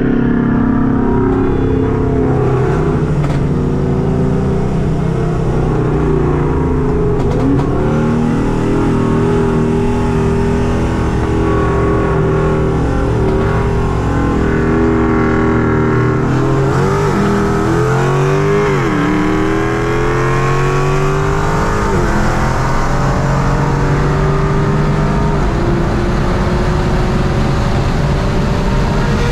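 Full-bolt-on Audi S3 8Y's turbocharged 2.0-litre four-cylinder running hard under acceleration, heard from inside the cabin. Its pitch dips and climbs again several times around the middle.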